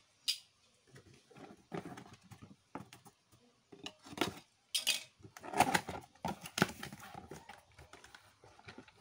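Cardboard toy box being handled and opened by hand: irregular taps, scrapes and rustles of cardboard and plastic packaging, busiest in the second half.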